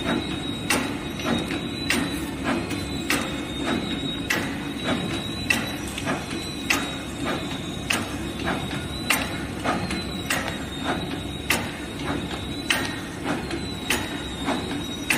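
SJ190 automatic four-row wet wipe packaging machine running, turning out alcohol prep pad sachets. It gives a regular sharp clack about every 1.2 seconds with lighter clicks in between, over a steady hum and a thin high whine.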